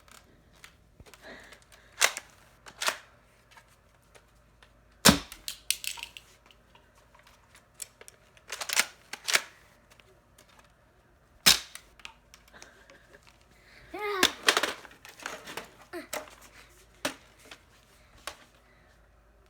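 Nerf blaster being fired at balloons: about eight sharp cracks, irregularly spaced a second or a few seconds apart, with small clicks and clacks of handling in between.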